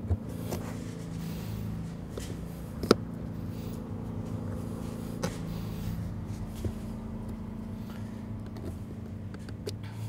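A few short, sharp clicks as bolts are pushed through the rubber pond liner into the holes of a metal waterfall-filter faceplate, the loudest about three seconds in. Under them runs a steady low mechanical hum.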